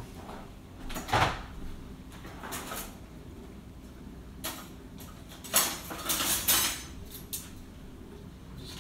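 A sharp knock about a second in, then a wooden kitchen drawer full of metal cutlery and utensils opened and rummaged through, the utensils clattering loudest a little past the middle as one is pulled out.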